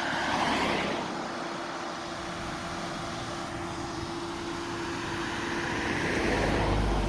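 Motor vehicles driving past, with the sound swelling as one passes about half a second in and again as another passes near the end. A steady hum runs underneath.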